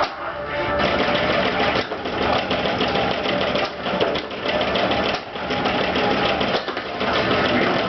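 Attack From Mars pinball machine in play: fast, continuous mechanical clicking and rattling from its solenoids and moving parts, with the game's electronic sounds faint underneath.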